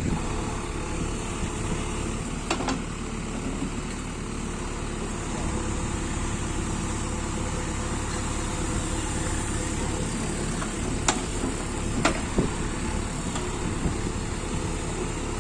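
JCB 3DX backhoe loader's diesel engine running steadily as it works the loader arm, with a few short sharp clicks.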